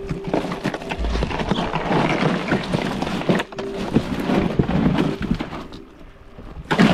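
Plastic ice bag crinkling and ice rattling as fish are packed into a cooler, with many small clicks and rustles. A sharp knock comes near the end.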